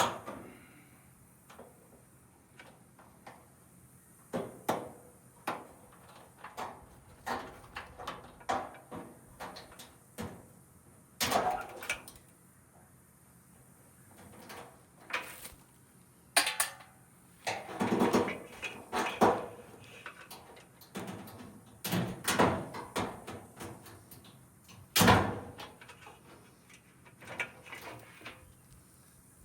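Irregular clanks, knocks and scraping of scrap metal being handled and dropped while a washer and dryer are stripped. The sharpest knocks come at the very start and about 25 seconds in.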